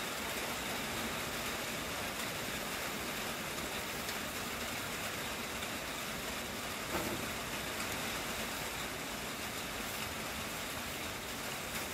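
Steady hiss of rain falling, with a single light clink of a metal spatula on the grill grate about seven seconds in.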